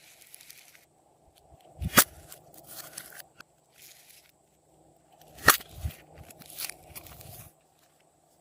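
Slime with makeup and clay mixed in being kneaded and pressed by hand: soft squishing and crackling, with two sharp pops about two seconds and five and a half seconds in as air pockets burst.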